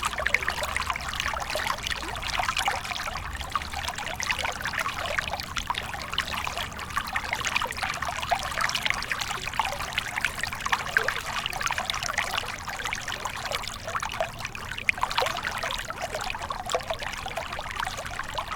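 Water flowing and trickling steadily, an even splashing hiss with many small bubbling flecks.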